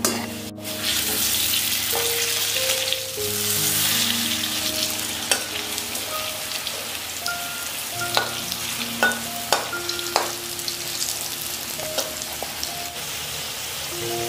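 Potato chunks sizzling as they fry in oil in a kadhai, with a spatula clinking and scraping against the pan several times in the second half. Soft background music with held notes runs underneath.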